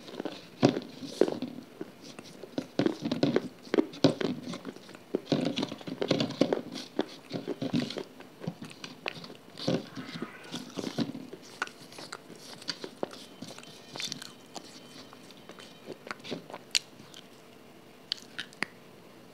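Close-miked eating sounds: fingers squishing and scooping a soft, wet food on a steel plate, then biting and chewing it, with many sharp, sticky clicks that thin out in the second half.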